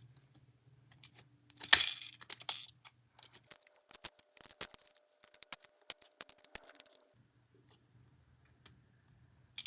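Toy claw-machine game being played: plastic clicks and rattles as the claw is worked. Its small motor gives a steady whine for about three and a half seconds in the middle.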